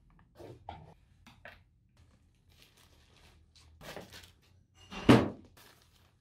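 Plastic packaging rustling and small knocks as boxed items are unpacked and handled, with one louder thump about five seconds in.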